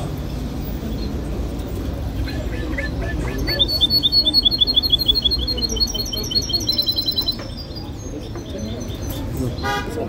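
A small cage bird singing a fast trill of short repeated chirps for about four seconds, over low background chatter; a short toot sounds near the end.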